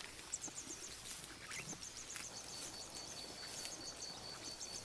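Faint wild ambience of small birds chirping, with a steady high-pitched trill that starts about a second in and stops near the end.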